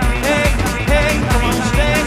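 Loud live electronic dance music: a steady kick-drum beat under a repeating synthesizer riff that bends in pitch.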